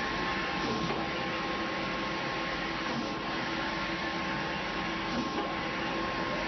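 Wide-format transfer-paper printer for fabric, running steadily with a continuous mechanical whir and a thin steady whine.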